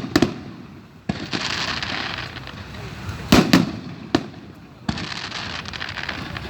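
Aerial fireworks shells bursting in the sky: a sharp bang at the start, then a dense crackle for about two seconds, followed by two bangs in quick succession and two more single bangs.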